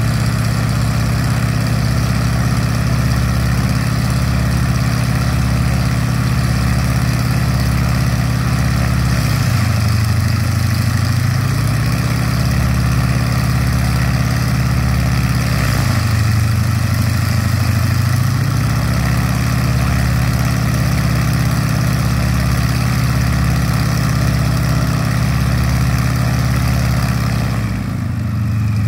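Yak-52's nine-cylinder Vedeneyev M-14P radial engine idling on the ground with the propeller turning. The engine note shifts briefly twice, about ten and sixteen seconds in, and drops near the end.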